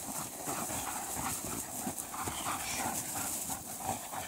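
Two dogs scuffling and leaping for a frisbee around a handler on grass: a run of quick, irregular thumps and scuffles from paws and bodies.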